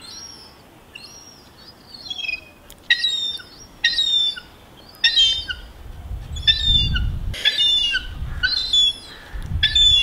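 Seagulls calling: a run of short, loud, repeated calls, faint at first and coming closer together, more than one a second, in the second half. A low rumble sits underneath around the middle and near the end.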